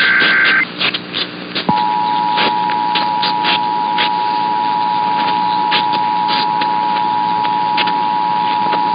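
The end of an Emergency Alert System SAME header data burst (fast warbling digital tones) cuts off under a second in. Then, after a short gap, the steady two-tone EAS attention signal (853 and 960 Hz) starts and holds, announcing the Nevada required monthly test. Radio static with frequent crackles runs underneath.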